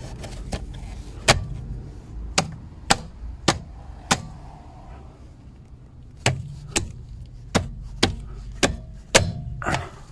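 Plastic hubcap being knocked onto a car wheel with the palm of the hand: a run of sharp slaps and clicks, about six in the first four seconds, a pause, then six more near the end, as the cover is pressed home.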